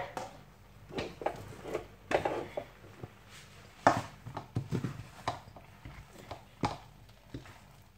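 Wooden spoon knocking and scraping in a pot as thick barley genfo dough is stirred and mashed, with irregular soft knocks every second or so.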